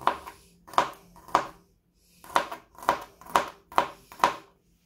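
Kitchen knife chopping garlic on a cutting board: about a dozen quick, uneven chops that stop shortly before the end.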